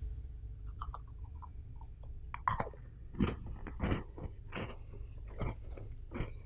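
Crisp matcha butter cookies being chewed: a run of short crunches, a few faint ones first, then louder ones about every two-thirds of a second from about two and a half seconds in, over a low steady rumble.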